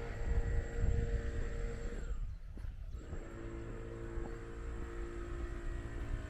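Wind buffeting the microphone as a low, fluttering rumble, with a steady engine-like drone that drops in pitch a little about three seconds in.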